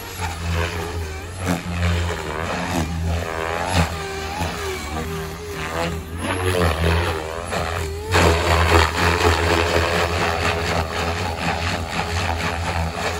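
Electric RC helicopter (XLPower Protos 480, 4015 brushless motor) in aerobatic flight: a steady low rotor hum under a motor and blade whine that sweeps up and down in pitch again and again as the manoeuvres load the rotor. About eight seconds in, the sound grows louder and more rushing.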